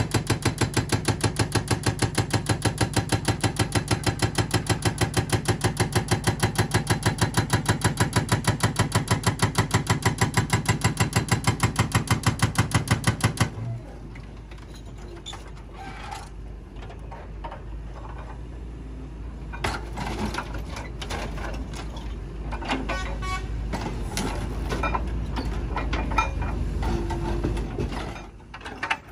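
Excavator-mounted hydraulic breaker hammer pounding a large steel cylinder in a fast, even train of blows, many a second, which stops abruptly about halfway. After that a low machine rumble runs on, with scattered metal knocks and clanks.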